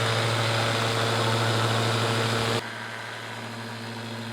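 Electric paint-correction polisher running steadily with a low motor hum and pad whir. It cuts off abruptly about two-thirds of the way through, leaving a quieter hum.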